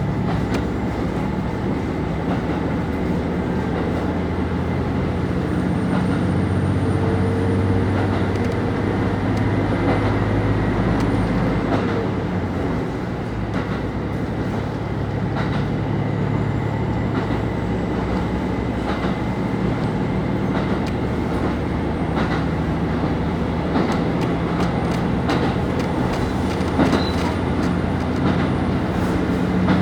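Running sound inside a JR KiHa 25 diesel railcar: the underfloor diesel engine drones steadily, with wheels clicking over rail joints. The engine note drops slightly about halfway through.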